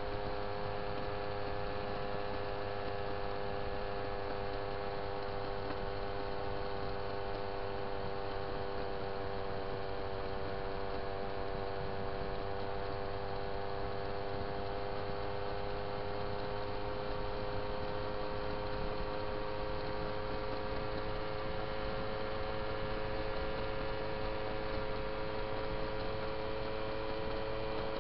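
Moped engine running at a steady cruising speed, a continuous droning note that sags slightly in pitch midway and climbs gently again near the end, over low road and wind rumble.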